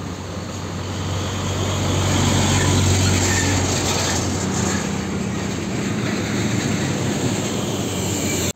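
Hino tanker truck's diesel engine and tyres as it drives past close by, a low engine drone swelling to its loudest about three seconds in. Other traffic, a motorcycle and another truck, follows behind it.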